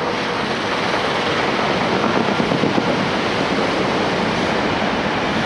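A Class 455 electric multiple unit passing close by on the track below, a steady rushing of wheels on rail that builds a little in the first second and then holds.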